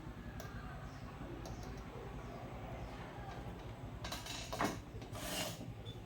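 Light scattered clicks over a steady low hum, with a few sharper clicks about four seconds in and a short scraping rustle about five seconds in.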